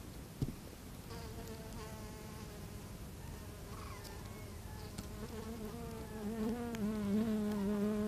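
Hoverfly buzzing in flight, a wavering wingbeat hum that starts about a second in and grows louder near the end. A soft knock sounds just before the hum.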